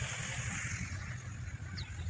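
Quiet outdoor background: a steady low rumble with faint hiss, and a short faint chirp near the end.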